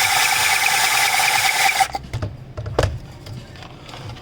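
Electric drill running as it bores out a hole in the enclosure, then stopping abruptly about two seconds in. Light handling clicks and one sharp knock follow.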